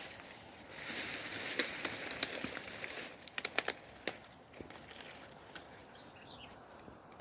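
Rustling and crackling noise, with a cluster of sharp crackles about three and a half seconds in, then quieter.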